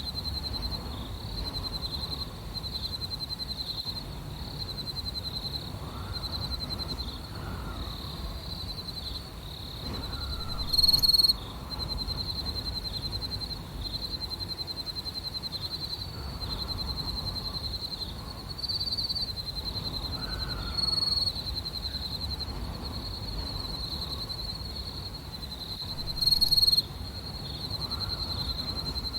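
Night ambience: crickets chirping in a steady high trill over a low wind rumble, with the wind swelling softly every few seconds. Two short, louder high calls stand out, about a third of the way in and near the end.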